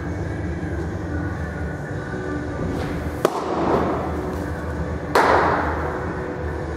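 Two sharp ball smacks about two seconds apart, the second louder and trailed by a brief rush of noise, over a steady low hum.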